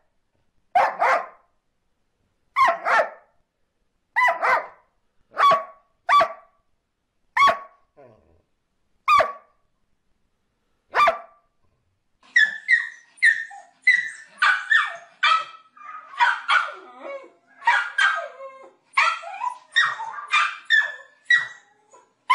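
A dog barking, at first in single barks a second or two apart, then from about twelve seconds in a quicker run of higher barks, several a second.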